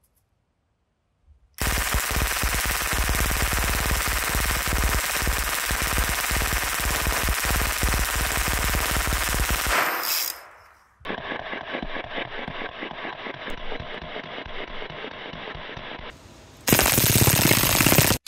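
American 180 .22 LR submachine gun firing a long, unbroken full-auto burst of about eight seconds, its very fast rattle like a swarm of angry bees. After a brief break comes a quieter, muffled stretch of rapid fire, then another loud burst near the end.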